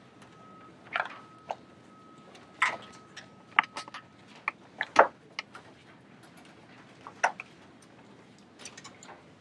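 Scattered, irregular clicks and light knocks from people handling laptops and gear in a quiet classroom. The loudest knock comes about five seconds in, and a faint steady high whine runs through the first four seconds.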